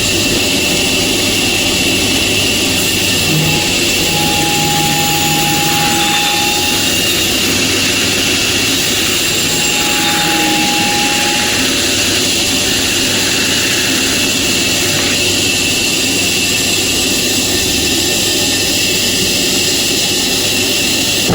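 Sawmill machinery running with a steady, loud mechanical drone. A faint whine rises above it twice, for a couple of seconds each time.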